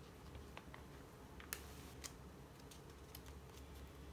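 Faint, scattered light clicks and ticks of hands handling and turning the paper pages of a bound journal, one sharper click about a second and a half in.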